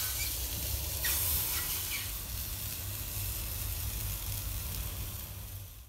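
Raw marinated chicken breasts sizzling loudly on a hot grill grate as they are laid down, the sizzle flaring up again about a second in, over a steady low rumble. It stops abruptly near the end.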